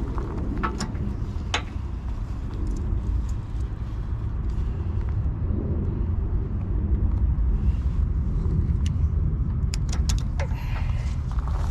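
Steady low engine rumble, with a few light clicks and taps of small parts being handled.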